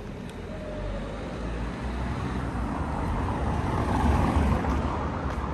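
A motor vehicle passing close by. Its low rumble and road noise grow to a peak about four seconds in, then begin to ease off.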